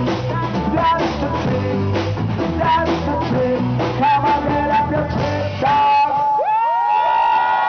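Rock band playing live with singing, guitar and drums. About six seconds in, the beat stops and several tones glide up into a long held final note.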